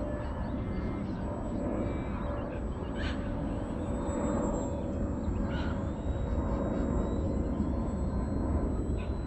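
Small electric RC airplane's motor and propeller droning faintly overhead, with a steady low rumble and three short high chirps spread through.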